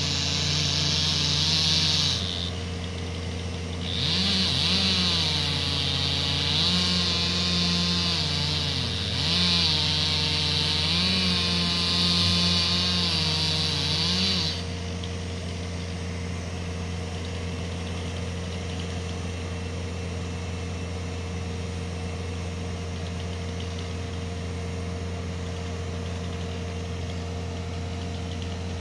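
Two-stroke chainsaw cutting through a log, its engine pitch rising and falling under load. It cuts briefly, pauses about two seconds in, then cuts again until about fourteen seconds in. A steady engine idling hum runs underneath throughout and is all that remains after the saw stops.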